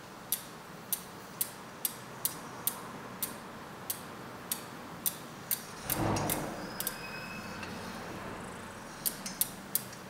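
Spinning bicycle rear wheel ticking against a cable-tie truing gauge, a sharp tick about twice a second that slows slightly as the wheel coasts. The tick marks a spot on the rim that is still out of true and catches the tie once per turn. A brief rustle of handling comes about six seconds in, and a few quicker ticks come near the end.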